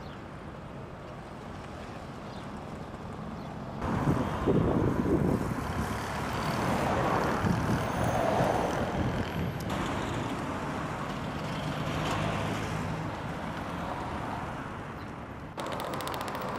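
Street traffic: cars and trucks passing on a city road, getting louder about four seconds in, with the sound changing abruptly a couple of times after that.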